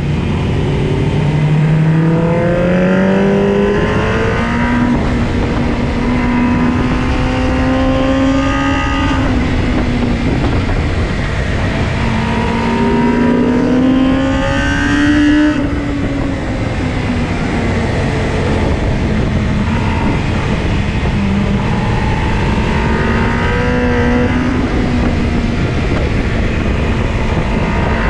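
Motorcycle engine heard from on board at speed, its pitch climbing and dropping back in several runs as the bike accelerates hard through the gears and shifts, over a steady rush of wind.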